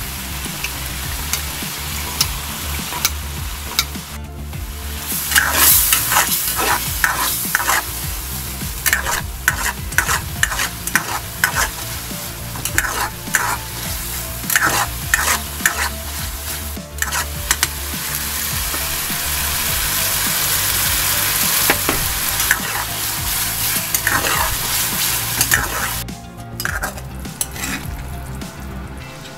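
Mapo tofu sizzling as it is stir-fried in a wok, with a metal utensil repeatedly scraping and knocking against the pan over a steady low hum.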